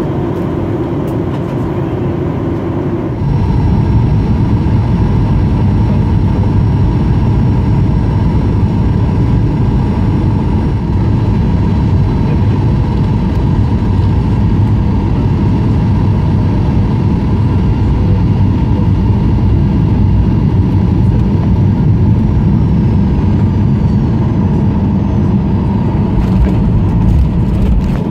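Cabin noise of a Boeing 737-800 with CFM56 engines, heard from inside: a loud, steady rumble of engines and airflow that steps up sharply about three seconds in and stays up. Faint falling whines come near the end.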